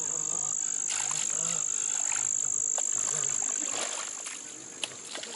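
Steady high-pitched insect drone over a rice field, with a man's low murmuring voice and scuffling and sloshing in muddy ditch water.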